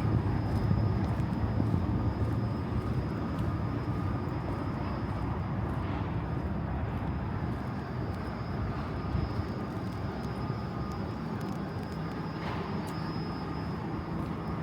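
Steady low rumble of city traffic, with a louder passing vehicle fading away over the first couple of seconds. A faint steady high hum runs underneath.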